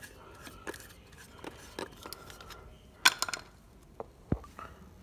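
Light clicks and metallic clinks as the parts of a three-trumpet air pressure horn set are handled, with a short cluster of sharp clinks about three seconds in and a dull knock near the end.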